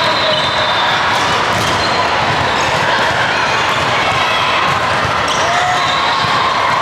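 Steady din of a busy indoor volleyball tournament hall: many voices with volleyballs bouncing and being hit.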